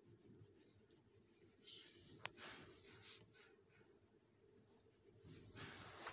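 Near silence: faint room tone under a faint, steady high-pitched tone, with a single faint click about two seconds in.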